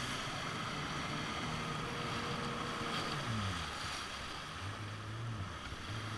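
Kawasaki jet ski running across a lake, its engine drone under the rush of water spray and wind on the microphone; the engine note falls about three seconds in.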